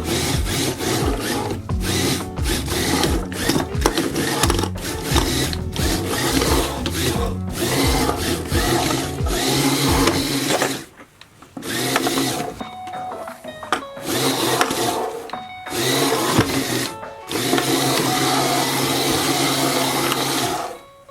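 Background music with a stepping bass line, over the whirring of the RC car's small DC gear motors, which run in spells and stop briefly several times.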